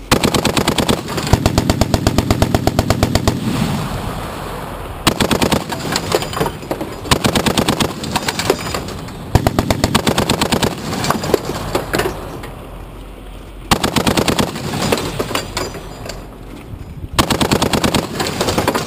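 Browning M2 .50-calibre heavy machine gun firing about six bursts at roughly nine shots a second, the first burst the longest at over three seconds, with the report dying away between bursts.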